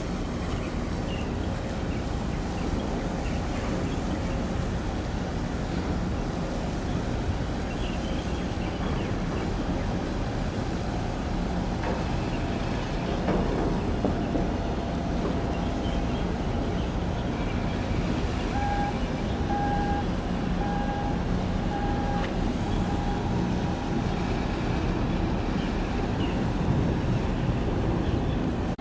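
Steady low rumble of a large container ship passing close by under its diesel main engine, mixed with open-air harbour noise. About two-thirds of the way through, a string of short, evenly spaced beeps sounds.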